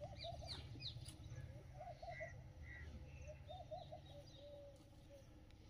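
Faint bird calls: many short chirps and peeps, some falling in pitch and some in quick runs of three or four, over a low steady background rumble.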